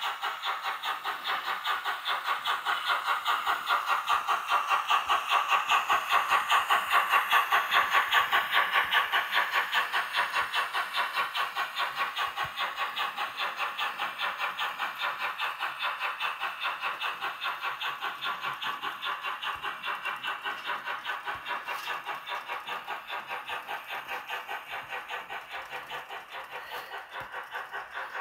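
Sound-equipped Roco H0 model of a ČSD class 555.0 steam locomotive running with a goods train, its loudspeaker giving a steady chuffing beat of about three chuffs a second. It grows louder as the locomotive passes, loudest about a third of the way in, then fades slowly as the wagons roll by.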